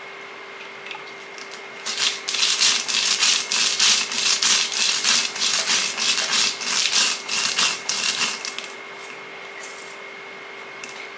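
Stone roller of an ammi grinding stone rolled back and forth over dry roasted horse gram, crushing the grains with a loud gritty grinding at about three strokes a second. It starts about two seconds in and stops about eight and a half seconds in.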